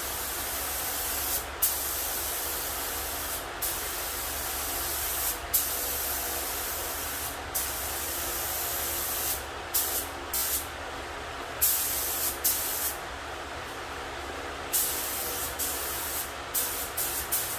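HVLP spray gun laying down epoxy primer: a steady hiss of air and atomised paint. It cuts off briefly about every two seconds as the trigger is let go between passes, and more often near the end.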